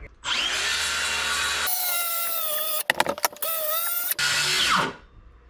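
Circular saw spinning up and cutting across the bottom of a wooden door to undercut it, its motor pitch dipping under load. It stutters in a few quick breaks about three seconds in, runs again, then winds down with a falling whine near the end.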